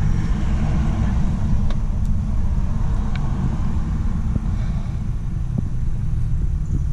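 Steady low rumble with a few faint, light clicks from hands working at the fuel-line quick-release clips.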